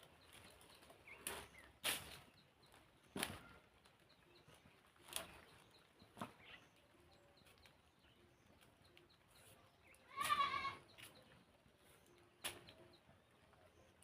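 A goat bleats once, a short wavering call about ten seconds in, among scattered sharp clicks and snaps.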